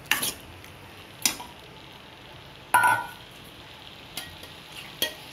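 Thick potato and tomato-masala gravy sizzling steadily in a stainless steel pan while a steel spoon stirs it. There are a few sharp clinks of the spoon against the pan, the loudest about halfway through with a brief metallic ring.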